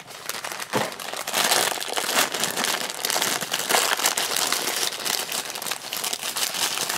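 Black foil blind-bag wrapper crinkling continuously as hands crumple and pull it open to get at the figure inside.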